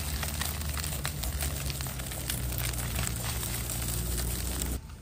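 Duck eggs frying in a wok, sizzling, while chopsticks scrape and tap against the pan in many short clicks as they are stirred. The sound drops off suddenly near the end.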